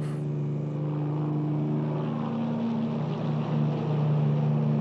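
Small motorboat engine running steadily, a constant drone that gets a little louder toward the end.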